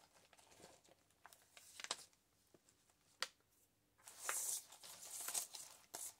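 Soft paper rustling as the brown-paper pages of a handmade journal are handled and turned, with a few faint taps early on; the rustling picks up about two-thirds of the way through.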